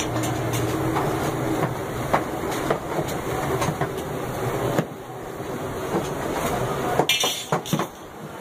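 Long iron tandoor rods clicking and scraping against the tandoor's rim as baked rotis are lifted out, irregular metallic clicks over a steady low hum. A quick run of sharper clicks comes about seven seconds in.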